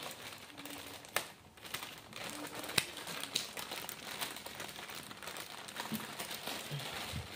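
Clear plastic bag crinkling as hands work it open, with scattered small sharp clicks.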